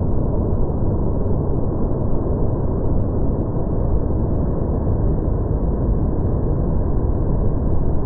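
The Fukuroda Falls in heavy rainy-season flow, water pouring over the rock in a steady, deep roar. The recording is slowed down along with the 240 fps slow-motion picture, so the rush sounds low and muffled, with no high hiss.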